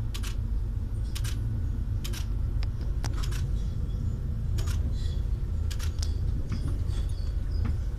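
The Little Yellow Train's electric railcar running, heard from inside the carriage: a steady low rumble with irregular sharp clicks and knocks over it.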